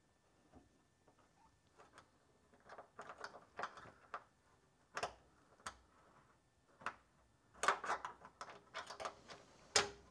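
Scattered light clicks, taps and short scrapes of hands fitting a small round body cover with a rubber gasket into a car's lower body panel and securing it from behind. The sounds come in small clusters, with a few sharp clicks.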